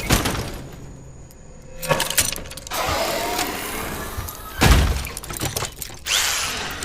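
A run of separate sudden crashes with shattering and breaking, the heaviest and deepest hit a little past halfway, with rattling noise between the hits.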